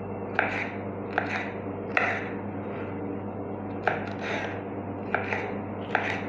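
Kitchen knife chopping a yellow bell pepper into cubes on a wooden cutting board: about six sharp knocks of the blade striking the board, roughly a second apart, with a longer pause in the middle.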